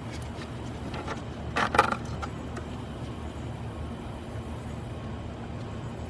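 Steady low hum like a vehicle engine running, with one short scraping noise just under two seconds in.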